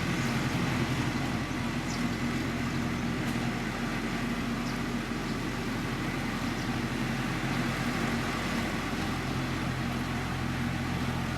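Diesel engine of heavy road-construction machinery running steadily, a low engine drone over a constant rumble.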